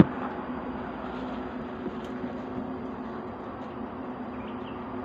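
Honeybees from a wild nest being cut out of a rock crevice, buzzing in a steady drone, with a sharp click right at the start.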